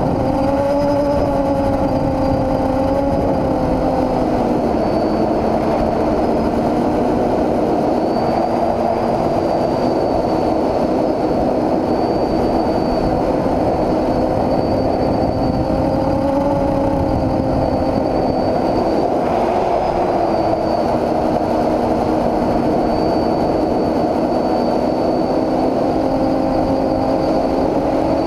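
Quadcopter in flight: its brushless motors and propellers make a steady buzzing drone whose pitch drifts up and down with throttle, over a constant rushing noise.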